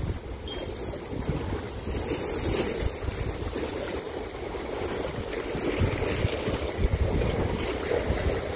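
Wind buffeting the microphone over the wash of sea water against jetty rocks, with no pitched sound.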